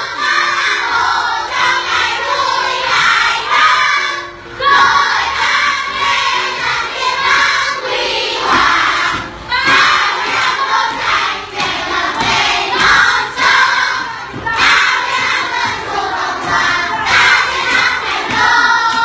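A classroom of children singing and shouting a cheering song together, loudly and in chorus, with brief breaks between phrases about every five seconds.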